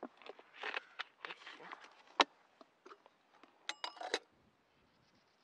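A small metal kettle being handled by hand: scattered light knocks and clicks, a sharp click about two seconds in, then a brief ringing metallic clink near four seconds as the lid is set on.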